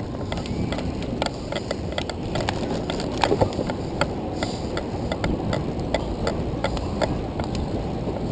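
Handcycle rolling on pavement while being hand-cranked: a steady rumble of tyres and wind, with a run of light clicks about three times a second.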